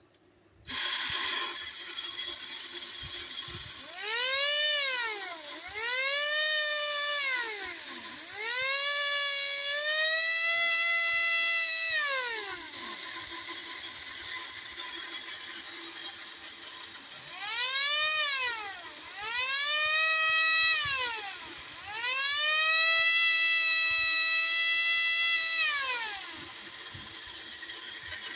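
Battery-operated 1960s Nomura tin toy fire engine running, starting about a second in: its motor and gears whirr with a ratcheting clatter. Its siren wails in two sets of three, two short rising-and-falling wails followed by a longer held one.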